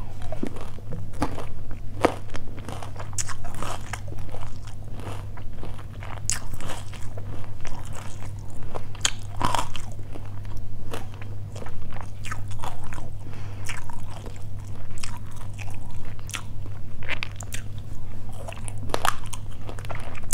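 Close-miked chewing of a mouthful of pork belly tossed with lemongrass and kumquat: repeated crunching and wet mouth sounds at an irregular pace.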